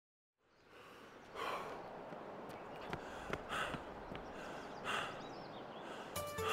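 A person breathing hard: four deep breaths one to two seconds apart over a steady hiss. Music begins near the end.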